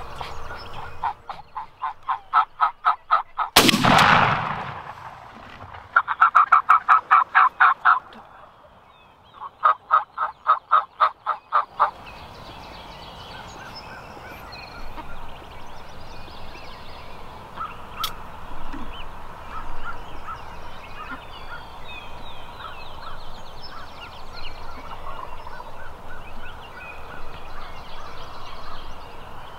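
Wild turkey gobbler gobbling: three rapid, rattling gobbles in the first twelve seconds, then a quieter background with faint bird calls.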